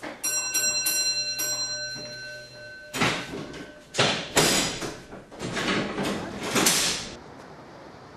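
A signal box bell rings a few quick strokes. About three seconds in come loud clanks and rattles in several bursts as a signal lever in a mechanical lever frame is pulled over.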